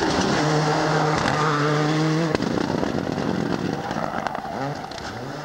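Ford Escort WRC rally car's turbocharged four-cylinder engine held at high, steady revs. About two seconds in, the revs cut off sharply with a crack. Near the end the revs climb again.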